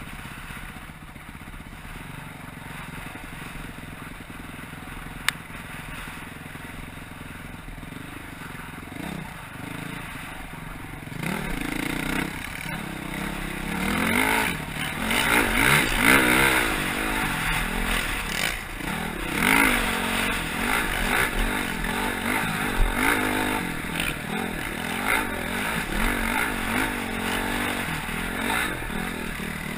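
Dual-sport motorcycle engine, heard from the rider's own bike, running steadily and quietly at first, then louder from about a third of the way in, revving up and down as the throttle is worked on a dirt trail. A single sharp click about five seconds in.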